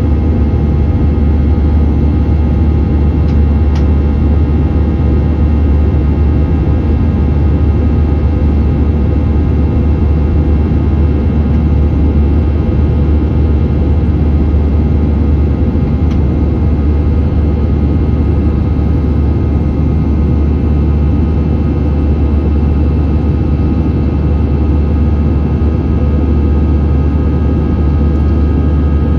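Steady cabin noise of an Airbus A321 in flight, heard from a window seat by the wing: the turbofan engines' drone with a deep rumble and a few steady whining tones.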